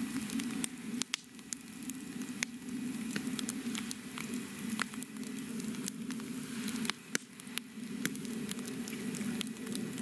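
Campfire crackling: a steady low rush of burning with sharp, irregular pops scattered throughout.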